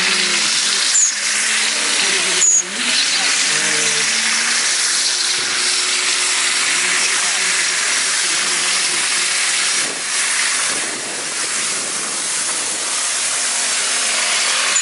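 Nissan Skyline drift car doing a stationary burnout: rear tyres spinning and screeching in a loud, steady hiss over the engine held at high revs. The hiss dips briefly about ten seconds in, then carries on.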